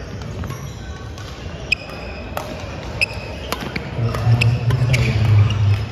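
Badminton rally in a gymnasium: sharp cracks of rackets striking a shuttlecock and short sneaker squeaks on the hardwood floor, echoing in the hall. About four seconds in, a louder low hum joins and lasts nearly to the end.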